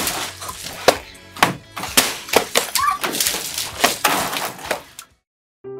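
Water balloons hitting a person in a plastic raincoat and bursting: a rapid, irregular run of wet splats over background music. The splats break off suddenly about five seconds in.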